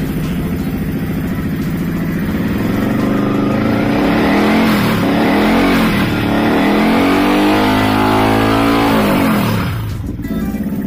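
Yamaha Vixion single-cylinder motorcycle engine on its first test start after assembly, breathing through an aftermarket slip-on muffler: idling, then blipped up and down repeatedly for several seconds, then settling back to idle near the end. The exhaust note is deep and not too loud.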